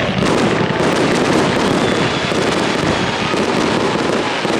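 Festive fireworks salute: a dense, unbroken barrage of crackling and popping bursts.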